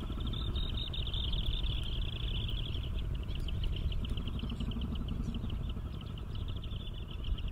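Outdoor ambience: a steady low rumble with a fast, high-pitched pulsing trill running over it. The trill turns into more distinct, separate pulses about three seconds in.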